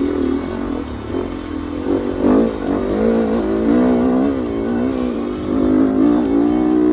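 Dirt bike engine revving, heard from an onboard camera, its pitch climbing and dropping over and over as the throttle is opened and closed.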